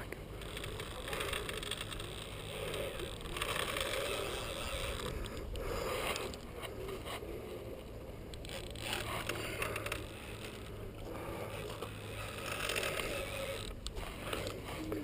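Fishing reel being worked against a big Mekong catfish: the reel's gears and drag give an uneven mechanical ratcheting and scraping that swells and fades.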